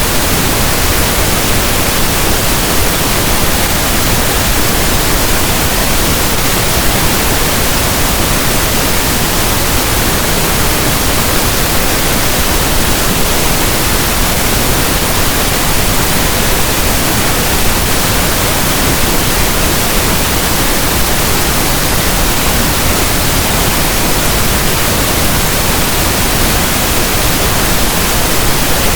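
Steady pink noise: an even hiss like the soft static of a radio station not in tune.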